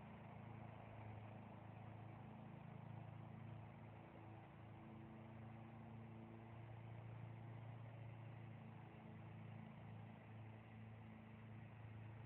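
Near silence: a faint, steady low hum made of several held tones, over a light hiss.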